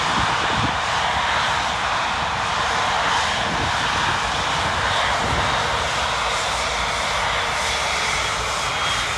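Large jet airliner's engines running, a steady, loud rushing noise with no change in pitch.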